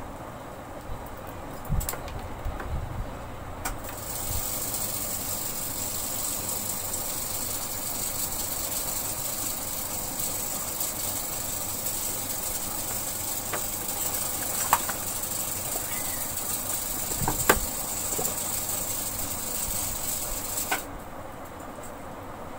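A steady high hiss from an unseen source switches on about four seconds in and cuts off suddenly near the end. Over it come a few small sharp clicks of nose pliers and plastic air-cooler louver strips being worked by hand.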